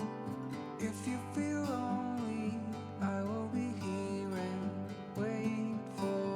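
Background music: a song with strummed acoustic guitar and a voice singing the melody, which comes in about a second in.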